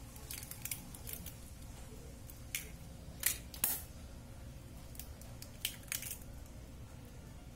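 Raw eggs being cracked and their shells pulled apart by hand over a stainless steel bowl: a scattered series of sharp shell cracks and clicks, the loudest two a little over three seconds in.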